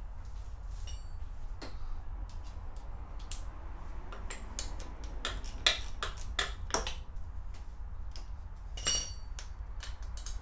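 Small hand tools clicking and tapping on metal as bolts are worked loose from a Benelli TNT 125's engine. The clicks come thick about halfway through, and a single ringing metallic ping sounds near the end, over a steady low rumble.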